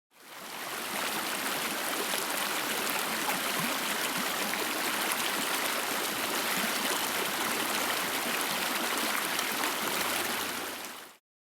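A creek flowing in a steady, even rush. The sound fades in at the start and stops shortly before the end.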